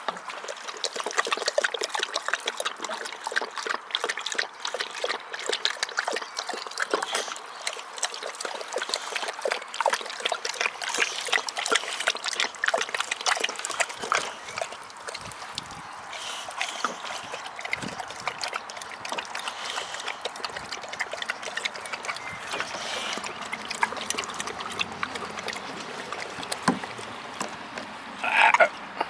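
Running water trickling and splashing as a boxer dog plays and snaps at it, with dense irregular splashes throughout. Near the end comes one short, loud, high-pitched sound.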